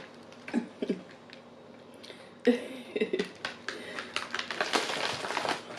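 Plastic candy bag and individually wrapped hard candies being handled, crinkling in a dense run of crisp crackles through the second half, with a couple of short murmured voice sounds in the first half.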